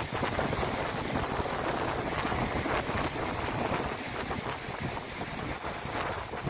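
Ocean surf washing steadily on the shore, with wind rumbling on the microphone.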